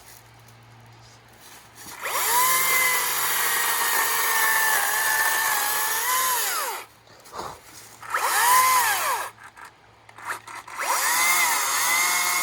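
Makita 18-inch brushless battery chainsaw's electric motor and chain winding up to a high whine, running about five seconds while cutting wood with the pitch sagging slightly under load, then winding down. A brief one-second rev follows, and another run starts near the end.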